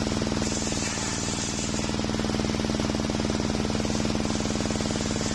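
Homemade circular table saw ripping a waru (sea hibiscus) board, the blade cutting steadily under load over a fast, even pulsing drone from its drive.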